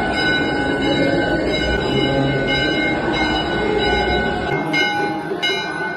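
Temple bells ringing continuously during aarti: a dense metallic clanging with a held ringing tone. Near the end the low rumble drops away and separate bell strikes stand out.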